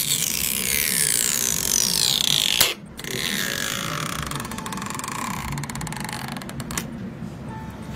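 Stretch-release adhesive strip being pulled out from under an iPhone 6 battery: a creaking squeal that falls in pitch as the strip stretches, in two long pulls with a brief break nearly three seconds in.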